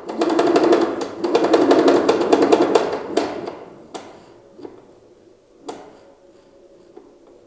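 Graco 490 XT airless sprayer's piston pump clacking rapidly for about three seconds as pressure is turned up towards its maximum, then only a few single clacks, over a faint steady hum from the motor.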